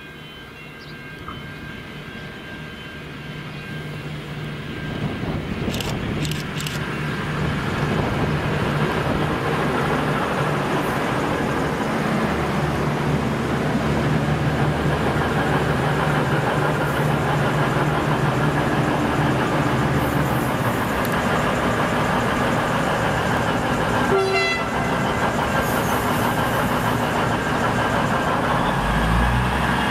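V/Line VLocity diesel multiple unit running into the platform: its diesel engines and wheels grow steadily louder over the first eight seconds as it draws near, then run on loud and steady as the carriages roll slowly past and come to a stand.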